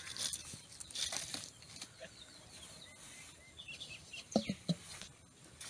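Faint farmyard background: small birds chirping a few times, and two brief clucks from a chicken a little after four seconds.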